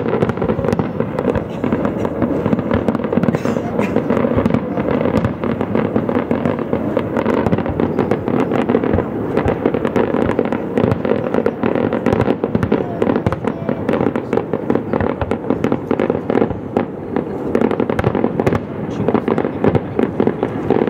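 Fireworks display: a dense, unbroken barrage of aerial shell bursts, with many bangs and crackles overlapping.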